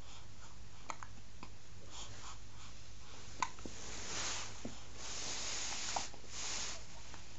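Quiet room with a steady low hum, a few faint clicks, and soft rustling in the second half as a newborn stirs in a fleece sleeper and a hand reaches in.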